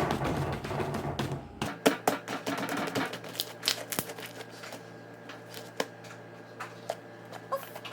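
Homemade slime being squeezed and worked by hand, giving off irregular sticky pops and crackling clicks, dense for the first few seconds and then scattered.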